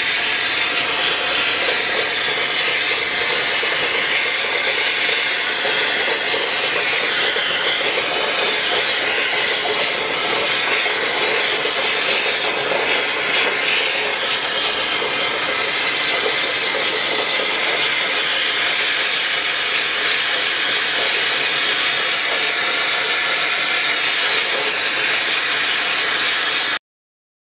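Gas torch burning with a steady hiss as its flame heats a perforated steel basket of electrical contacts to melt the solder off the silver contact points. The sound cuts off suddenly near the end.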